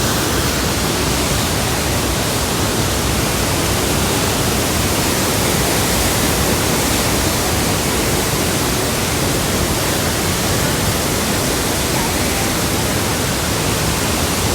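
Large waterfall's water crashing down, a loud, steady, even roar with no change.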